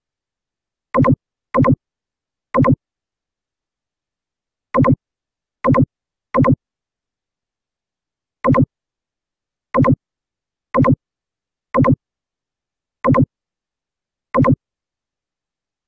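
Short electronic pop sound effect, the kind added on each mouse click in a screen recording, heard twelve times at uneven intervals with dead silence between the pops.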